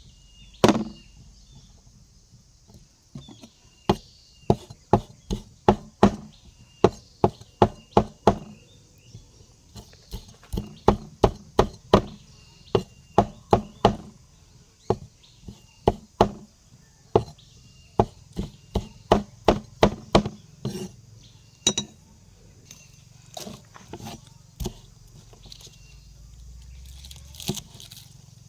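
Chopping with a knife on a cutting board: sharp, regular strokes about two a second, in runs broken by short pauses, thinning out over the last several seconds.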